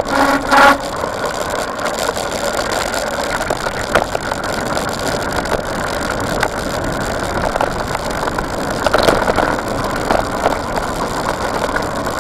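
Mountain bike rolling fast down a dirt trail: steady rushing tyre noise on the packed dirt and gravel, with frequent rattles and knocks from the bike over bumps. A short squeal sounds right at the start.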